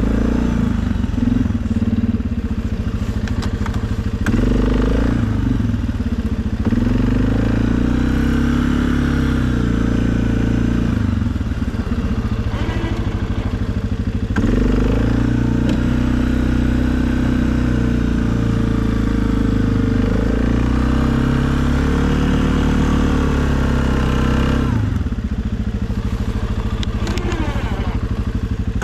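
2020 Suzuki KingQuad ATV engine running under load while plowing snow, its pitch rising and falling several times as the revs change, with a drop in revs near the end.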